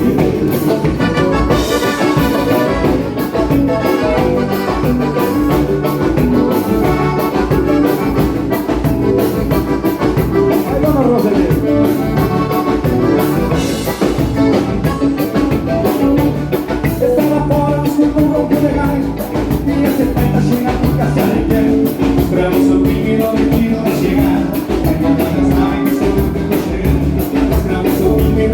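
Live band playing a gaúcho vanera, a steady, loud dance beat with drums and singing.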